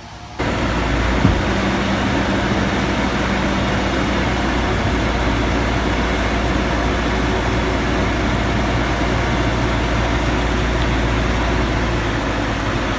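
A heavy engine running steadily at an even speed, starting abruptly about half a second in, with a brief knock just after.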